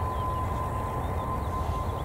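Distant jet airliner engines running: a steady low rumble with a thin, steady whine, and faint bird chirps.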